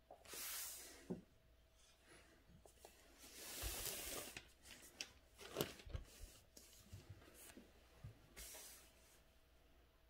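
Faint rubbing and rustling of an ink brush and calligraphy paper: a short swish at the start, a longer swish about three seconds in, and another near the end. Several light clicks and knocks fall around the middle.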